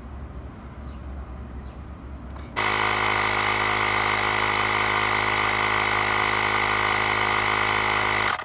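DENVIX cordless tire inflator's built-in electric air compressor starting abruptly about two and a half seconds in and running steadily while pumping air into a car tire, then cutting off suddenly near the end.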